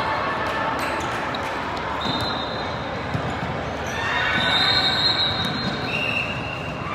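Echoing din of a large indoor volleyball hall with several courts in play: volleyballs being hit and bouncing, voices, and a few high steady tones cutting through, the longest about a second and a half near the middle.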